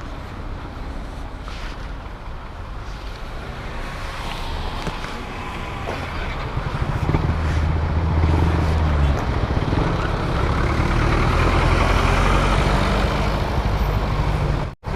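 Motorcycle riding through traffic: engine and road noise that grows louder about halfway through, with a strong low engine drone, then cuts out for an instant near the end.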